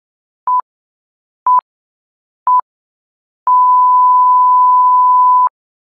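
Electronic beep tone: three short beeps about a second apart, then one long steady beep of about two seconds that cuts off suddenly, all at the same single pitch.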